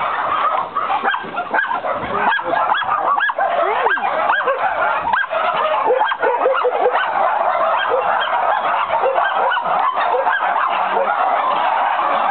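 Many dogs barking and yelping at once, a dense continuous chorus of short overlapping calls.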